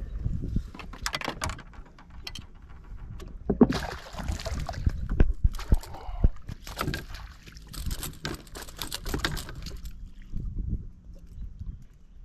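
Water splashing and sloshing at the side of a boat as a fish is worked in a landing net, with irregular knocks and rattles from the net and the hull. It is busiest in the middle and quieter near the end.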